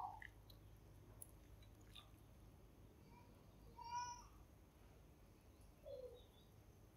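Faint, short animal cries over a near-silent room: one brief call about four seconds in and a lower call that falls in pitch near the end.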